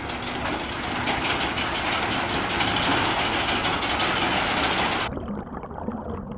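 Toy crane's small winch motor and gears whirring steadily with a fine ticking, lowering a load on its line. About five seconds in the sound turns suddenly duller and muffled.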